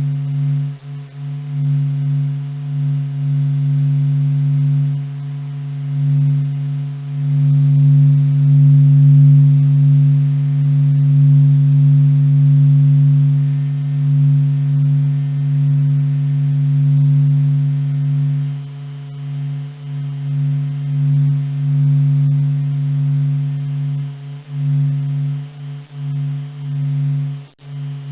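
Eerie low droning hum of a few steady held tones, presented as a sound recorded in space, slowly swelling and fading in loudness over several seconds.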